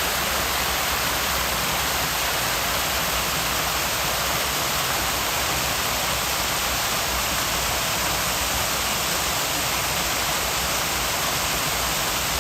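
Steady rushing noise, even and unchanging, like falling or running water.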